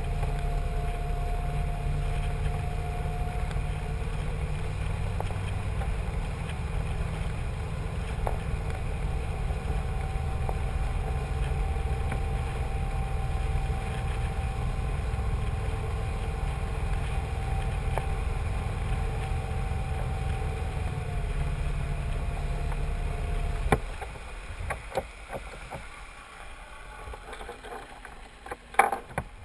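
A cruiser's engine running underway, a steady low rumble with a faint steady whine above it. About 24 seconds in, the rumble drops away suddenly and the sound goes much quieter, with a few sharp clicks near the end.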